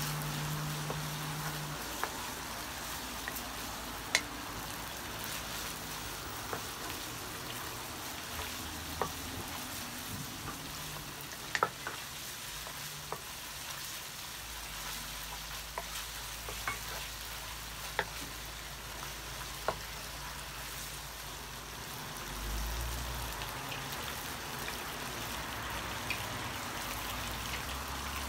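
Marinated beef slices and garlic sizzling steadily in a hot wok as they are stir-fried, with scattered light knocks of the wooden spatula against the pan every second or two.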